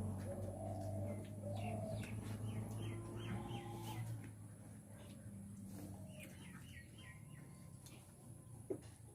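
Small birds chirping: two quick runs of short, falling chirps, one about two seconds in and another about six seconds in, with scattered faint clicks.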